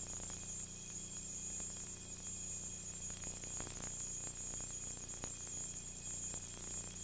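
Steady hiss and low hum from a second-generation VHS tape dub, with a high-pitched whine running through it and a few faint clicks.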